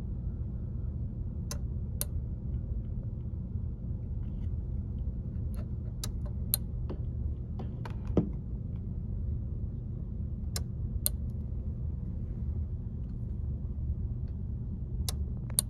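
Timer relay module clicking on, then off about half a second later, the pair repeating about every four and a half seconds as it keys the 27.255 MHz beacon transmitter for each short data burst, over a steady low rumbling noise. One louder knock about eight seconds in.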